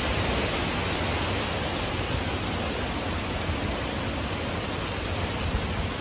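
Severe straight-line storm wind of 70+ mph blowing as a steady, unbroken rush through trees, with a low rumble of wind buffeting the microphone.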